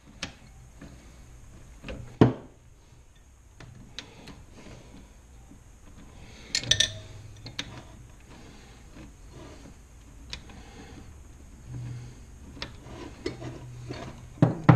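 A wrench working loose the bolts that hold a Corvair engine's aluminium crankcase halves together: scattered metal clinks and knocks of tool on bolts and case, the loudest about two seconds in and just at the end.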